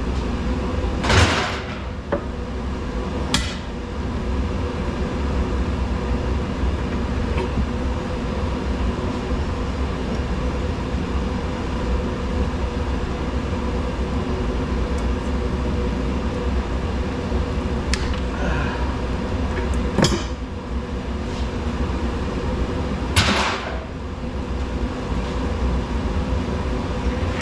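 Scattered knocks and clanks of scrap metal being handled or struck, a handful of sharp hits with the loudest about a second in, at about twenty seconds and at about twenty-three seconds, over a steady low hum.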